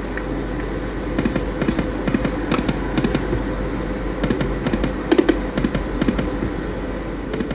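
Light & Wonder Dragon Train poker machine spinning its reels: a run of quick, irregular electronic ticks and clicks as the reels spin and land, over a steady background hum.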